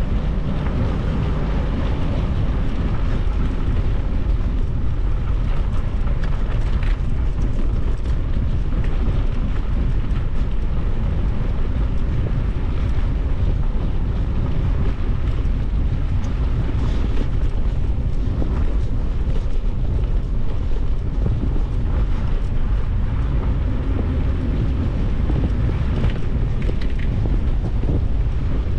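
Steady wind rumbling on the microphone: a loud, even low noise with no distinct events.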